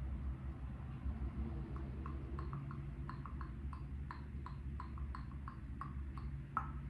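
A run of light, short clicks, about three a second, over a steady low hum; the clicks start a couple of seconds in and stop near the end.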